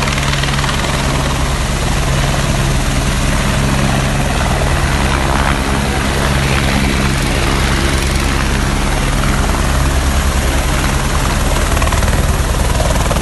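Helicopter close by as it comes in to land, its rotor blades beating in a fast low pulse over a steady engine hum and a loud rush of air.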